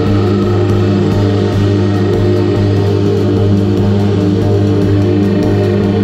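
A Eurorack modular synth holding a steady low droning note with stacked overtones, with drums played over it.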